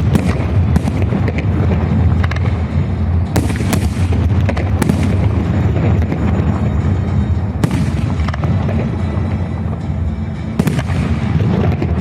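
Fireworks salute: several sharp bangs of shells bursting, with a steady low rumble between them and music playing along.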